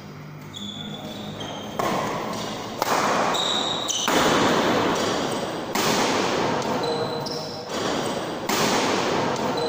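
Badminton rally: about six sharp racket hits on the shuttlecock, one every second or two, each ringing out in a large hall. Short high squeaks of shoes on the court floor come between the hits.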